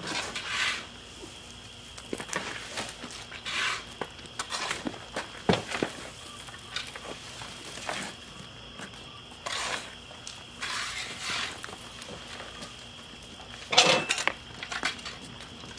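Shovels scooping into a pile of wood chips and tossing them into a garden cart: a string of separate scrapes and rustling swishes of chips, with a louder clatter near the end.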